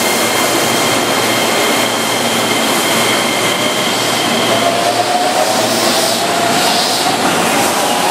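Keihan 10000-series electric train pulling out of the platform and gathering speed: a steady rush of running noise, with a motor whine that rises in pitch from about five seconds in.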